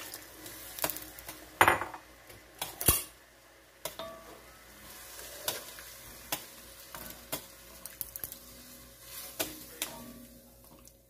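A wooden spoon stirring and knocking against a Dutch oven of seared chicken just deglazed with water, over a low sizzle from the hot pot. Scattered sharp knocks run through it, the loudest about two and three seconds in.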